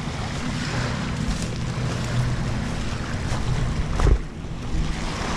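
Wind on the microphone and small waves washing on a beach, under a steady low engine hum from a motorboat on the water; a single sharp knock about four seconds in.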